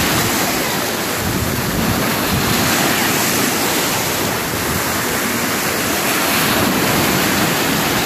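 Small ocean waves breaking and washing up onto a sandy beach: a steady rush of surf that swells now and then, with wind rumbling on the microphone.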